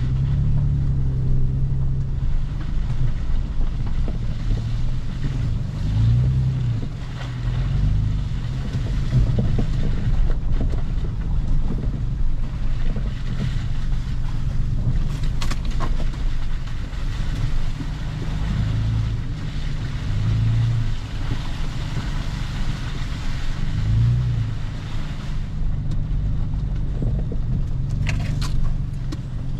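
Heavy rain pouring in strong wind, with a low, wavering rumble underneath and a few brief sharper sounds about halfway through and near the end.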